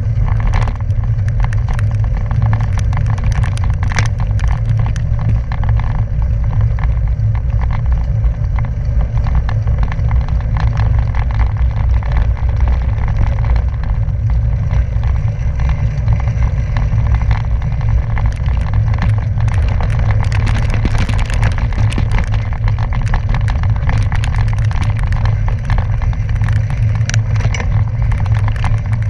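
Bicycle tyres rolling over a loose gravel road, heard through a bike-mounted action camera. A steady, heavy low rumble of wind and road buffeting on the microphone runs throughout, with constant small clicks and crackle from the stones and the bike's rattle.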